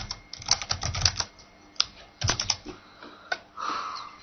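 Computer keyboard keys clicking as a short command is typed, in a few quick bursts of keystrokes with short pauses between them.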